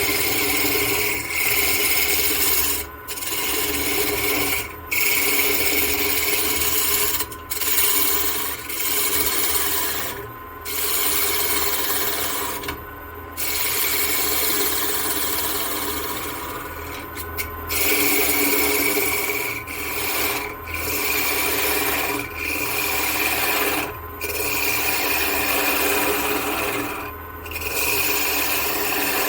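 Spindle gouge cutting a Western cedar block spinning fast on a wood lathe: a continuous rough shaving noise, broken by about seven short gaps where the tool lifts off the wood, over the steady hum of the lathe running.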